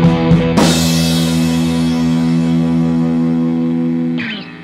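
Background rock music with guitar and drums: a few drum hits, then a final chord held and left ringing, which drops in pitch and fades near the end.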